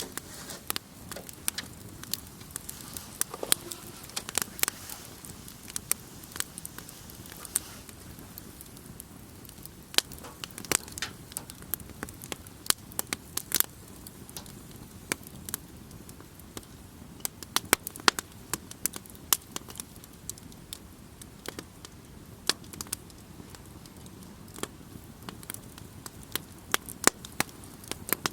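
Wood campfire crackling, with irregular sharp pops and snaps from the burning wood over a soft steady hiss.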